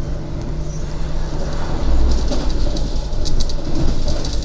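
Argo Bromo Anggrek passenger train running through a station without stopping, heard from inside a carriage: a steady low rumble of wheels on rails, with several clusters of sharp clicks as the wheels pass over rail joints.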